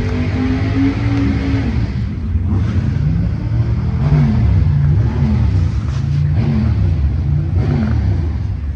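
A car engine running loud with a steady low rumble, then revved in a series of quick blips, pitch climbing and dropping several times from about two seconds in.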